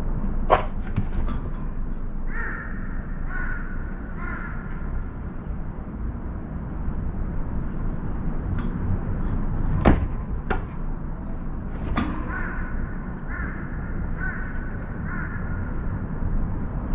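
Crow cawing in two runs of four caws, each about a second apart, the first starting about two seconds in and the second about twelve seconds in. A few sharp knocks in between, over a steady low rumble of wind.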